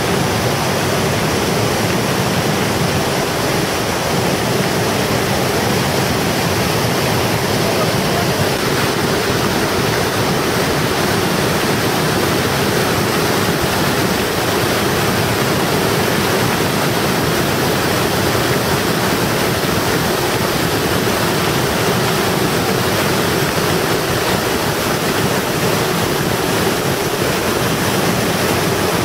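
Steady rushing of whitewater from the Capilano River rapids in a rock canyon.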